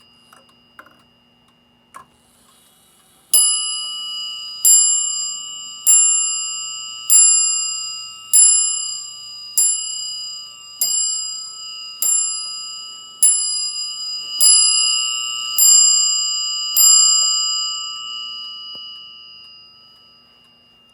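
Dutch Zaanse wall clock striking twelve on its bell: a few faint clicks as the strike train lets off, then twelve evenly spaced ringing strikes about a second and a quarter apart, each dying away, the ring fading out near the end.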